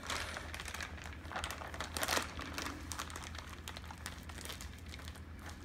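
Hefty zip-top plastic bag crinkling and crackling as hands press the air out of it, in irregular scattered crackles with the loudest about two seconds in.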